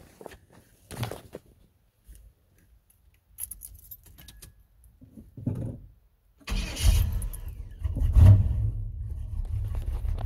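Keys rattle in the cab, then about six and a half seconds in the truck's 350 small-block Chevy V8, with a Summit K1103 hydraulic flat-tappet cam and dual exhaust through Dynomax Super Turbo mufflers, fires up, surges once about a second and a half later and settles into a steady idle. It idles a little weird at first because its new carburetor has no choke.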